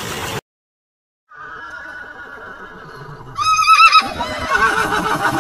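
An animal's whinnying call: a drawn-out pitched call that breaks into a loud, trembling trill partway through, then carries on rougher and less even. Before it, a short stretch of noise cuts off into about a second of silence.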